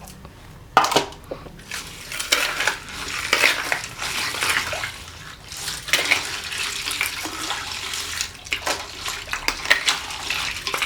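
Ice cubes clattering and splashing into a bowl of liquid fruit-ice mixture, with irregular clinks of ice and utensil against the bowl.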